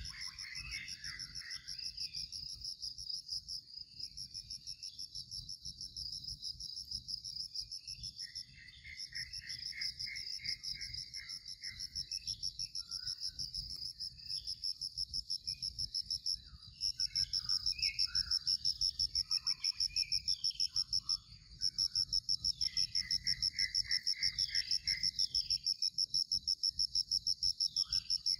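High-pitched insect trill pulsing rapidly and steadily, broken off briefly a few times and growing louder a little past the middle. Birds chirp and call on and off beneath it.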